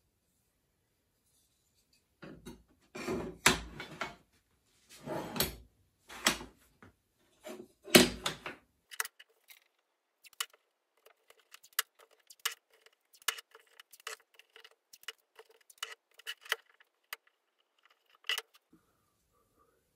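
Wooden workpieces being handled on a workbench: a few louder scrapes and knocks as pieces are slid and set down, then a long run of light, irregular clicks and taps as the walnut frame pieces are fitted together at the corners.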